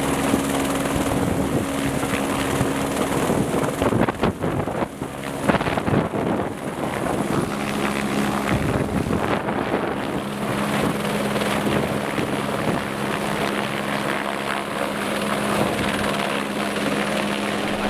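Helicopter flying close by, its rotor beating steadily over the turbine's hum; the held pitch steps down about seven seconds in.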